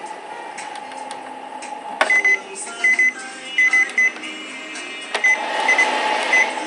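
Piezo buzzer on a Panasonic air purifier-humidifier's control board giving short high beeps, in pairs and quick runs, as its buttons are pressed, over a steady hum. The repaired board is responding to its buttons normally.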